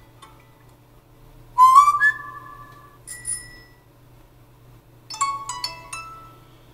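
A Lenovo Tab 2 A10-70L tablet's speakers playing short system notification sound previews one after another. About a second and a half in, a whistle-like tone slides up and holds for about a second. A brief high chime follows near three seconds, and a quick cluster of several chime tones comes about five seconds in.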